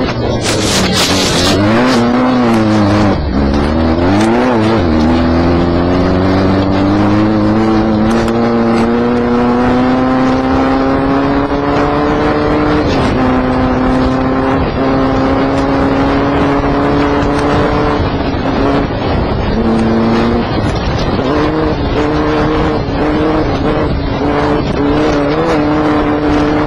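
Off-road desert race car's engine heard from inside the car on the move, its pitch swinging up and down for the first few seconds, then climbing slowly and holding steady at speed. There is a short burst of noise about a second in and brief drops in revs about two-thirds of the way through.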